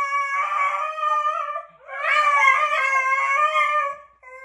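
Beagle howling in long, wavering, drawn-out notes: one howl breaks off just before two seconds in, a second long howl follows, and a short one starts near the end.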